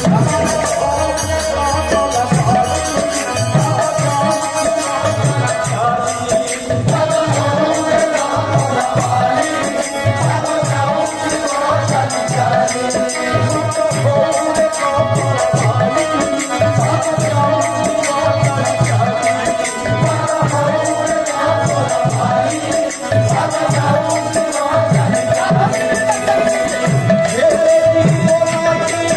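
Odia kirtan devotional music: a steady run of drum strokes with jingling small hand cymbals under a held melody line and group singing.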